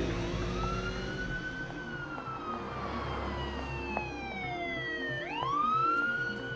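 A siren wailing: it rises in the first second or so, falls slowly, then sweeps quickly back up near the end. Under it runs a film score with a steady pulsing beat.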